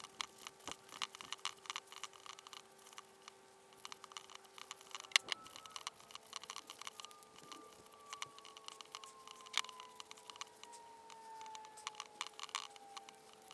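Hand sanding of a rubber CV joint boot with 80-grit sandpaper: quiet, irregular scratching and scuffing of the paper on the rubber as the hard, crusty, cracked outer layer of the aged boot is rubbed off.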